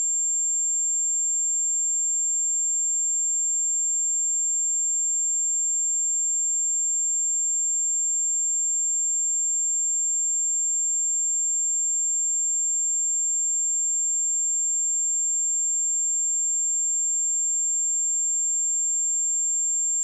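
A steady, continuous 7365 Hz sine-wave test tone, a single high-pitched pure tone held at constant pitch and level.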